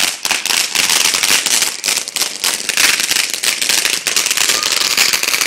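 Consumer ground fountain firework spraying with a dense, steady crackle: rapid small pops over a continuous hiss.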